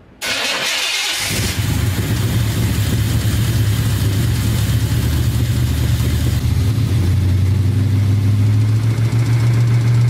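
Car engine running, given as an example of engine knock: detonation in the cylinders, heard as a knocking or pinging over the engine's steady note. It starts with a hiss, and the low engine note comes in about a second in.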